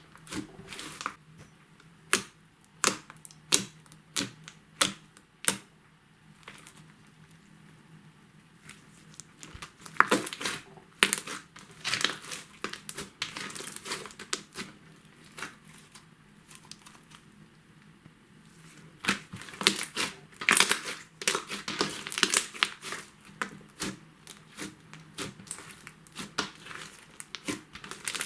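White homemade slime mixed with makeup and glitter being squished and poked by hand, giving sharp sticky pops and crackles. A few spaced pops at first, a quieter spell, then denser runs of crackling in the second half.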